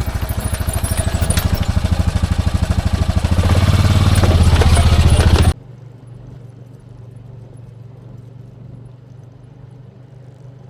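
Honda Pioneer side-by-side's engine running as it drives, with scattered knocks and rattles. It gets louder a few seconds in, then cuts off abruptly about halfway through, leaving only a faint low hum.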